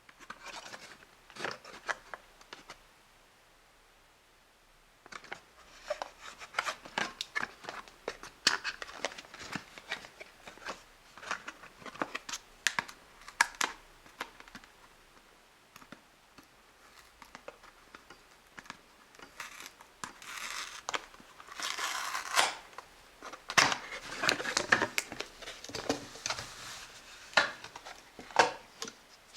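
Playmobil surprise egg and its wrapping being opened by hand: crinkling, tearing packaging with many sharp clicks and snaps. It comes in bursts with short pauses, and the crinkling is thickest past the middle.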